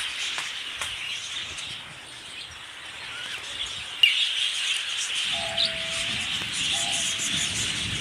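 Many small finches chirping and twittering together, a dense overlapping chorus of short high calls, with one sharp knock about halfway through.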